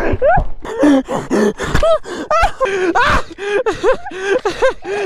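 A man gasping and grunting in quick, short pitched breaths, out of breath from exertion while wrestling.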